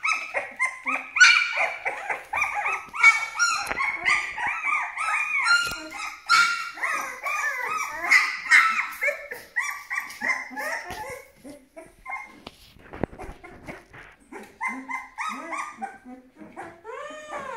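Two twelve-day-old Aksaray Malaklı puppies whining and crying in quick short calls, one after another, with a few yelps. They ease off for a couple of seconds past the middle, then start again.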